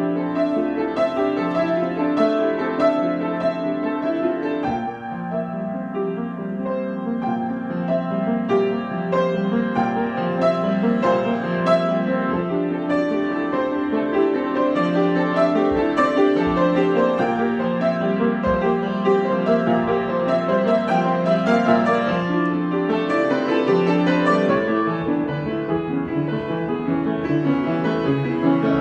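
Improvised solo piano, chords and melody played continuously with notes ringing over one another.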